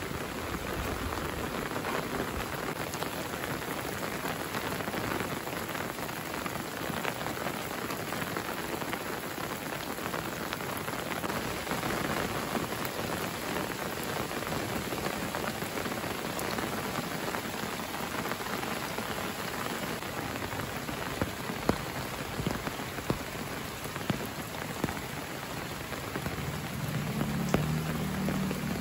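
Steady rain falling on foliage and a wet path, with a few louder single drops landing close by. A low rumble comes in near the end.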